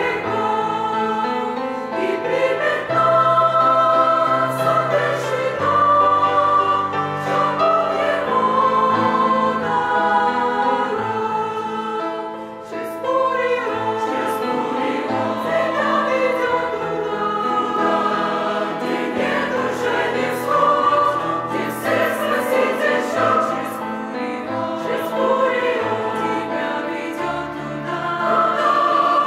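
Church choir singing a Russian-language hymn in sustained, full chords, with a short break between phrases about twelve seconds in.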